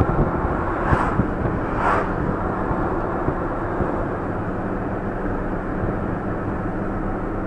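A vehicle driving along, heard from inside the cab: steady engine and road noise with a low hum.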